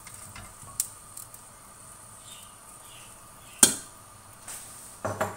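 Quiet kitchen handling as oil is poured into an empty wok: a few light clicks, then one sharp knock about three and a half seconds in as the oil dispenser bottle is set down, and a couple of lighter knocks near the end.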